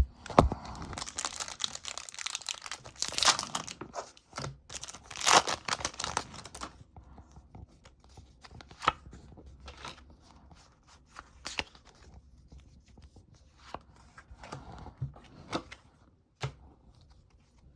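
Foil Pokémon booster pack wrapper being torn open and crinkled, busiest and loudest in the first seven seconds. After that come only scattered light crinkles and taps.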